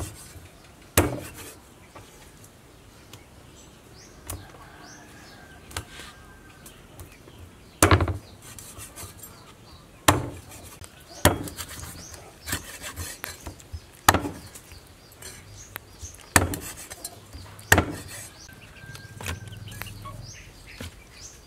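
Cleaver chopping fish on a thick wooden chopping block: about eight sharp chops at irregular intervals, with lighter knocks between them.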